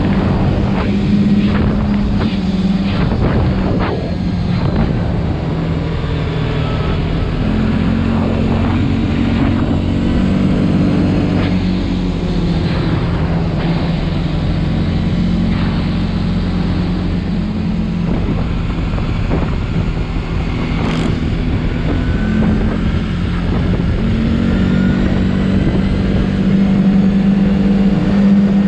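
CFMOTO CForce 450L ATV's single-cylinder engine running at road speed, its pitch shifting up and down with the throttle, with wind rushing over the microphone.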